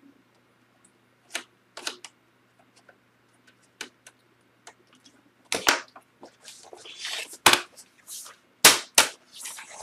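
Faint clicks of a screwdriver working at a screw in a Dell Vostro 1100 laptop's plastic case. From about halfway come four loud sharp knocks, with scraping in between, as the laptop base is picked up and turned on its edge.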